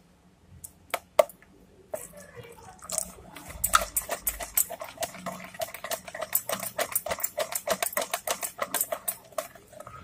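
Wire whisk beating thin ghevar batter in a plastic bowl: a quick run of rhythmic clicks and swishes, several strokes a second, starting about two seconds in.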